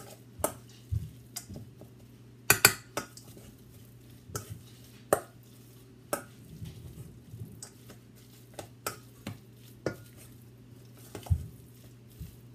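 A spoon stirring moist shredded chicken filling in a stainless steel mixing bowl: irregular clinks and scrapes of the spoon against the bowl, the loudest pair of knocks about two and a half seconds in. A steady low hum runs underneath.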